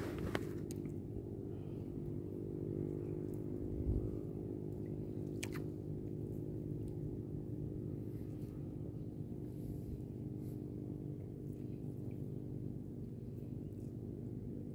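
Boat engine running at a steady idle, an even low hum, with a couple of faint clicks near the start and about five and a half seconds in.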